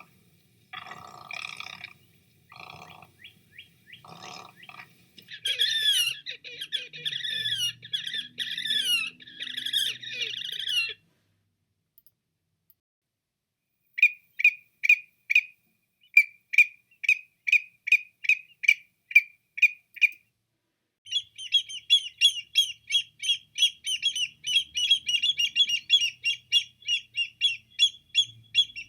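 A sequence of different bird calls: a few low, croaky calls first, then a warbling song, a short pause, a run of evenly spaced chirps about two a second, and a fast, high trill near the end.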